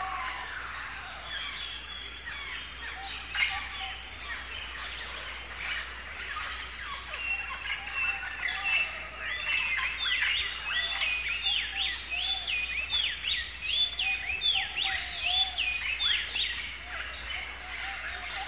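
A chorus of birds calling and chirping, many voices overlapping. From about halfway through, one bird repeats the same short call about twice a second. Three short high buzzy trills come through now and then.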